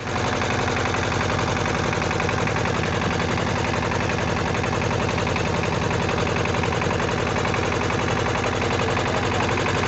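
Ship's diesel engine running steadily, a rapid, even pulse of firing strokes over a low hum.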